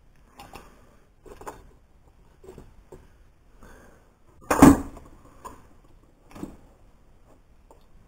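Tools and objects being handled and set down on a workbench: scattered knocks and rustles, with one loud knock about halfway through.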